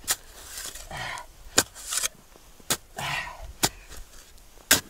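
Short-handled digging spade chopping into frozen soil: five sharp strikes, about one a second.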